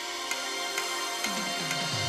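Electronic title theme music with a steady ticking beat, about two ticks a second, and falling swoops in pitch near the end leading into a deep bass.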